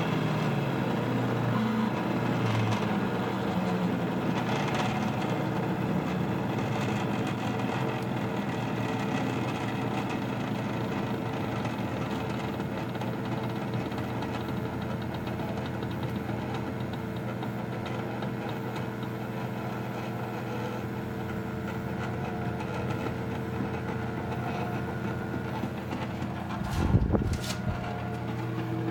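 NEMA stepper motors of a DIY four-axis CNC hot wire foam cutter running through a cut: a steady hum of several tones whose pitches shift as the axes change speed. A brief bump sounds near the end.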